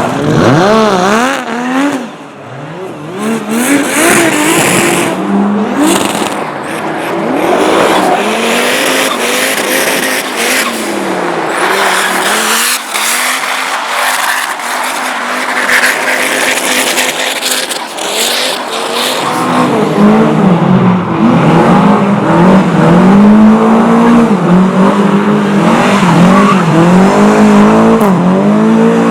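Race car engines revving hard, their pitch rising and falling again and again, with tyre squeal. About two-thirds of the way in, one car close by grows louder, revving in quick repeated surges.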